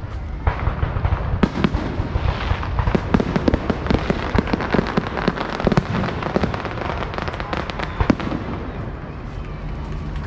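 Fireworks going off in quick succession: a dense string of sharp cracks and pops that thins out near the end.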